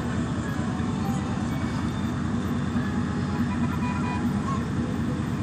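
Steady low rumble of vehicle engines and road noise, with music faint underneath.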